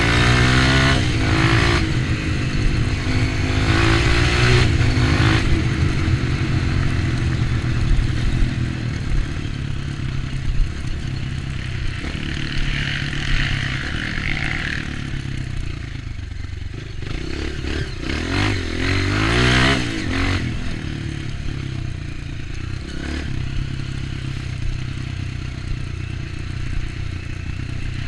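Trail motorcycle engine, a Honda CRF230's single-cylinder four-stroke, running under way off-road, its revs rising several times (near the start, about four seconds in and about nineteen seconds in) and easing off between, with rattling and scraping from the bike over rough ground.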